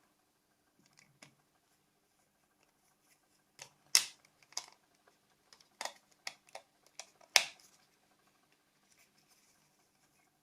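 Replacement body shell being pressed onto a Nokia C5 mobile phone: a series of sharp clicks and snaps as it seats, the loudest about four seconds in and again a little past seven seconds.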